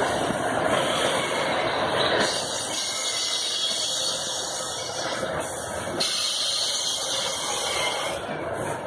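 Loaded iron-ore gondola wagons of a freight train rolling past on the rails, a steady rushing noise with a hiss over it.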